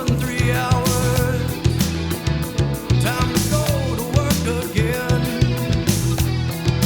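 Rock song with electric guitar, drums and a singing voice, laid over the video as background music.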